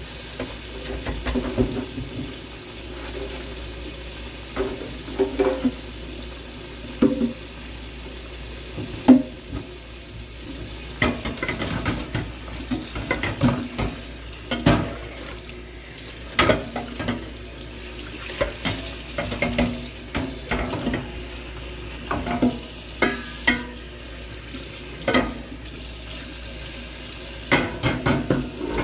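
Dishes being washed in a kitchen sink: water running steadily, with frequent clinks and knocks of dishes and utensils against each other and the sink.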